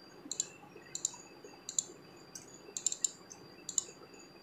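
Computer mouse button clicking: about eight short, sharp clicks at uneven intervals, with a quick run of three a little before the three-second mark.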